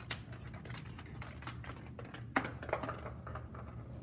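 A marble rolling down a run of cardboard toilet-paper-tube halves, clicking and rattling irregularly as it drops from one ramp to the next, with a louder knock about two and a half seconds in.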